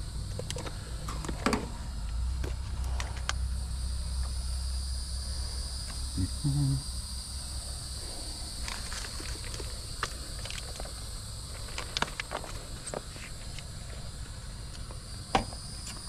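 Steady high chirring of insects, with scattered short clicks and taps from tools and parts being handled.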